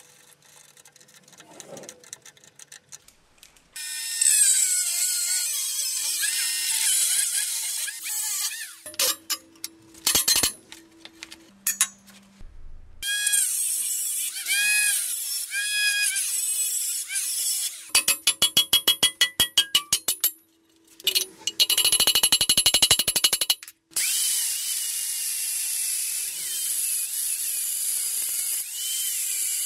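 Power tools working steel in a string of loud bursts several seconds long, with a high whine that rises and falls. The bursts start after a few quieter seconds, and about two-thirds of the way in comes a run of rapid, evenly spaced clicking.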